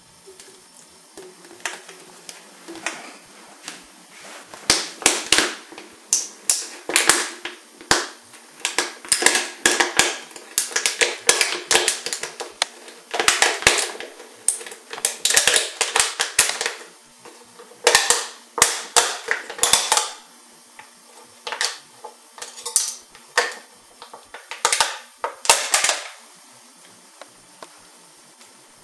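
A metal can being worked open: sharp cracking and clicking of the tin lid in irregular bursts, loudest through the middle stretch.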